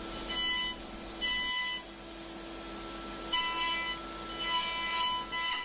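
5-axis CNC milling machine cutting a wooden post: a steady high hiss and hum, with a higher whine that comes in and fades out about four times as the cutter works.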